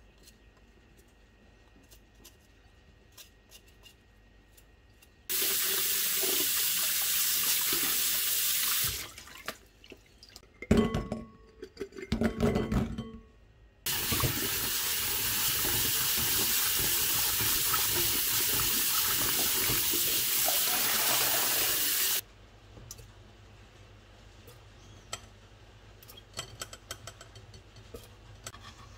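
Kitchen tap running into a glass bowl of dried jujubes as they are rinsed by hand: two steady runs of water, about four and then eight seconds long, with sloshing and bowl knocks between them. Before and after, only faint scraping and light clicks of handling.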